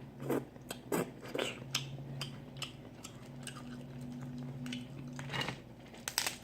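Eating snow crab: wet chewing and lip-smacking, with a run of short sharp clicks and cracks. The strongest cracks come in a cluster near the end.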